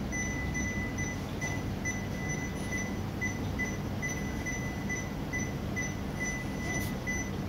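Patient monitor's pulse-oximeter tone beeping steadily, a bit over two short high beeps a second, one for each of the newborn's heartbeats, over a steady low hum of room noise.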